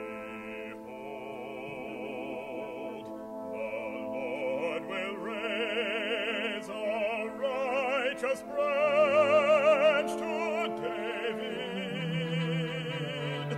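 Classical oratorio performance: a solo voice sings with strong vibrato over sustained orchestral accompaniment, swelling to its loudest a little past the middle.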